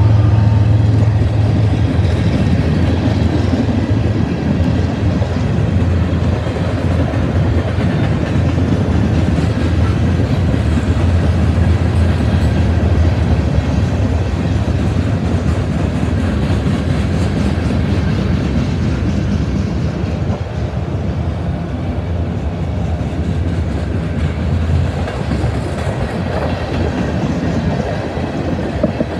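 Freight cars of a passing train rolling by on the rails close at hand: a loud, steady rumble of wheels on track.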